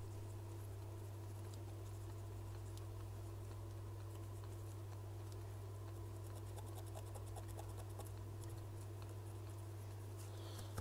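Faint scratching and light ticking of a small brush scrubbing a phone's logic board clean after soldering, over a steady low electrical hum from the bench equipment.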